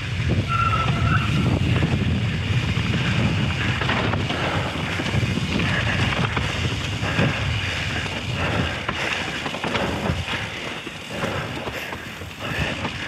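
Mountain bike riding down a rough dirt trail: wind buffeting the camera's microphone over a steady low rumble of tyres, with scattered clatter from the bike over roots and rocks. A brief high squeak about half a second in.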